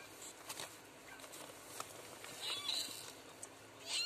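Short, high-pitched cat mews, one about two-thirds of the way in and a louder one at the end, over faint clicks and rustles.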